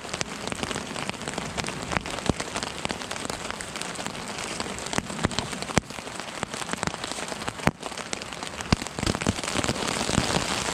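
Rain pattering steadily on a tarp overhead, heard from underneath it, with sharp ticks from single heavier drops scattered throughout.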